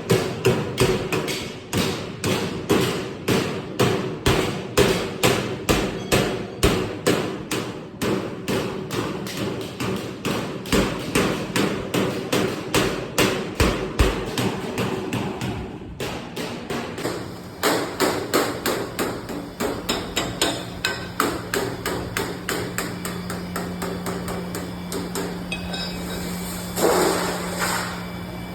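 Hammer striking galvanised sheet-metal ductwork in a quick, even run of blows, about two a second. About halfway through the blows pause briefly, then resume less regularly over a steady low hum.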